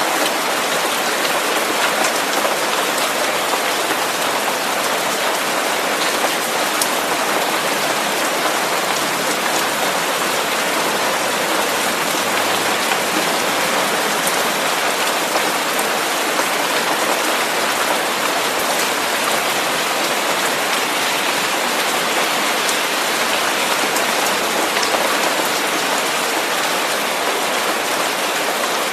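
Steady, even white-noise hiss for tinnitus masking, spread from the low mids up to the highest pitches, with a few faint scattered ticks.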